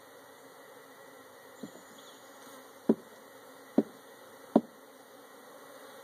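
Honey bees from a swarm cutout humming steadily as they are tipped from a cardboard box into a hive. The box is knocked four times to shake the bees out: a light knock, then three sharp knocks just under a second apart.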